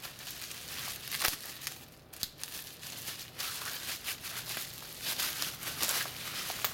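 Bubble wrap and plastic bag packaging crinkling and rustling as it is handled, with scattered small crackles and clicks.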